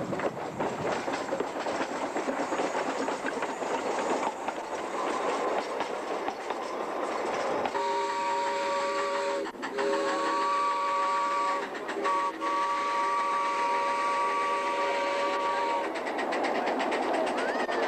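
Miniature ride-on train running past, its wheels rumbling and clattering on the track. About eight seconds in, its whistle sounds a steady chord of several notes three times, the last blast the longest.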